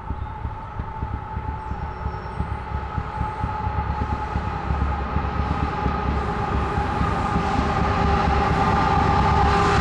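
Approaching diesel freight train led by a Canadian Pacific locomotive with a BNSF unit: a low rumble grows steadily louder as it nears, with a steady high-pitched tone running over it.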